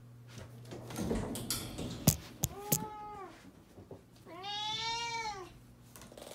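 Domestic cat meowing to demand food: a short meow about halfway through, then a longer meow that rises and falls. Before the meows come a few sharp knocks.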